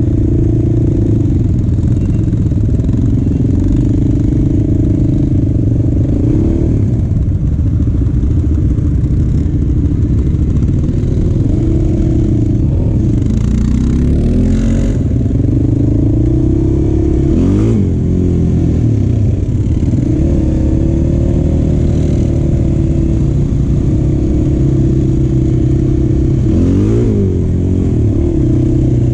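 Motorcycle engine running under throttle, its note dropping and climbing again several times as the rider rolls off and back on.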